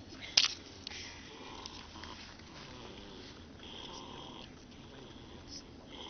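A person snoring: slow, drawn-out rasping breaths that recur about every two to three seconds, over a steady low hum. A sharp click shortly after the start is the loudest moment.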